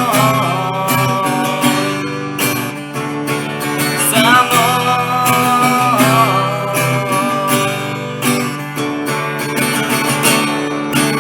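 Acoustic guitar strumming chords in a song's closing bars.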